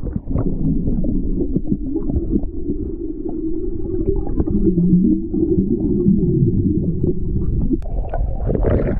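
Muffled rumble and sloshing of seawater heard with the microphone submerged, the sound of the surf dull and cut off above a low range. About eight seconds in it begins to clear as the microphone comes out of the water.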